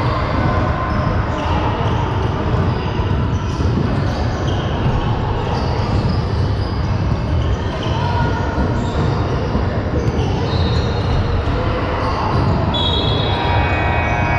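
Game noise in a large hall: a ball bouncing and many voices talking at once. A held, several-pitched tone sounds near the end, like a whistle or buzzer.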